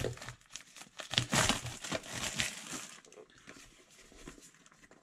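Plastic shrink-wrap film crinkling as it is handled and pulled at on a phone box, busiest in the first three seconds and then fainter.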